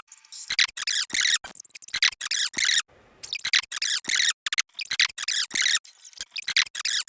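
A rapid string of short, high-pitched, squeaky sneeze sound effects, about three or four a second, with brief pauses about three seconds and four and a half seconds in.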